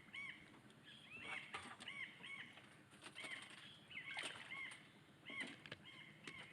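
Birds calling: short, rising-and-falling calls repeated several times a second, with scattered sharp clicks.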